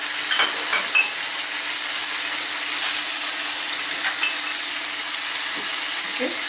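Shrimp sizzling in tomato sauce in a frying pan on a gas hob, a steady hiss. A spoon clinks against the pan a few times just under a second in and again about four seconds in.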